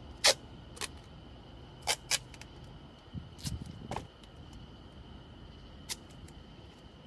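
A few sharp clicks and taps, the loudest about a quarter second in and two close together around two seconds, with soft low knocks around three and a half seconds: tools and materials being picked up and set down on a table. A faint steady high whine runs underneath.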